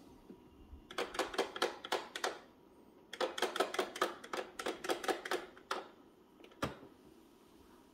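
Rapid clicking in two runs, about seven sharp clicks a second, the first about a second long and the second about two and a half seconds long, followed by a single click with a low thump near the end.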